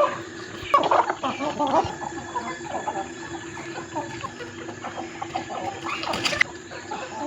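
Domestic chickens clucking, many short calls overlapping, louder about a second in. A brief sharp sound comes near the end.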